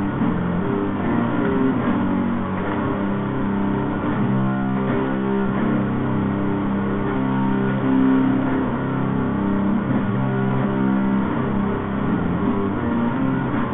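Music with held chords over a steady bass line.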